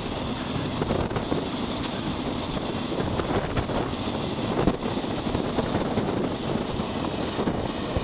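Freight train wagons passing at speed close by: a steady rush of noise with repeated knocks of wheels over the rail joints, and wind buffeting the microphone.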